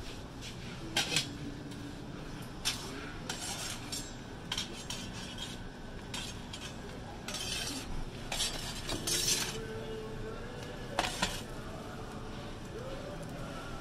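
Metal pizza peel scraping and knocking against the deck and rim of a wood-fired oven as pizzas are turned and pulled out. It comes as a series of sharp scrapes and clinks, some brief and some drawn out, over a steady background hum.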